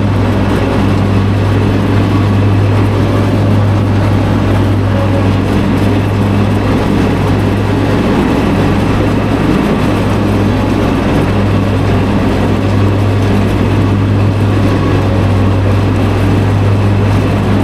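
Engine of a stand-on lawn machine running steadily at working speed as it drives across the lawn, a strong, even low hum with a rougher noise over it.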